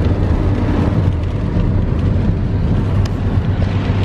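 Steady low rumble of engine and road noise inside the cabin of a moving car.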